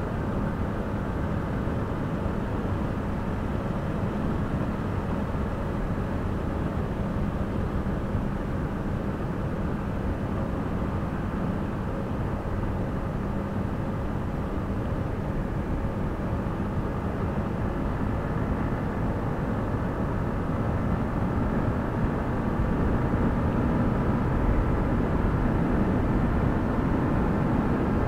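Yamaha MT-15's single-cylinder engine cruising in sixth gear at highway speed, with wind rushing over the microphone. The sound grows louder about three-quarters of the way through as the bike speeds up to around 100 km/h.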